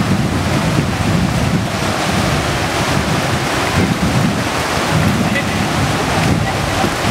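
Whitewater rapids rushing steadily, with wind buffeting the microphone in irregular low gusts.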